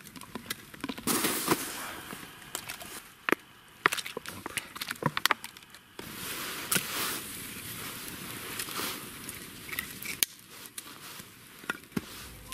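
Wood campfire crackling, with sharp irregular pops scattered through over a soft hiss.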